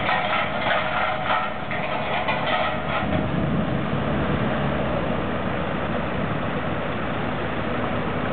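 A heavy engine running: a rattling noise for about the first three seconds gives way to a steadier low hum.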